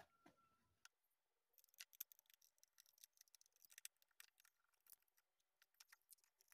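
Faint, irregular clicking and light tapping from the plastic front-panel housing of a home theater unit as it is handled and worked on by hand.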